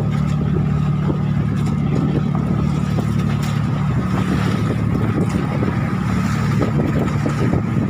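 Outrigger fishing boat's engine running steadily with a constant low hum as the boat travels, with water rushing and splashing along the hull and outrigger floats.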